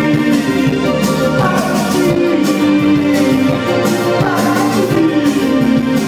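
Live rock band playing through a PA: electric guitar, keyboard and drum kit, with steady drum hits under held notes.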